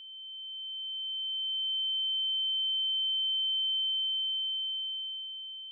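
A single steady, high-pitched pure electronic tone. It swells up over the first couple of seconds, holds, and starts to fade near the end.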